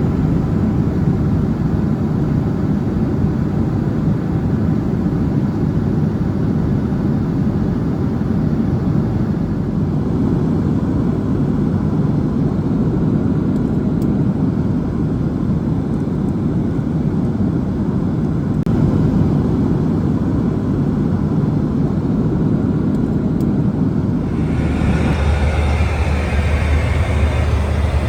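Steady airliner cabin noise of a Boeing 737-700 in flight: engine and airflow noise, strongest in the low range. About 24 seconds in it changes suddenly to a different steady sound with a deeper low hum.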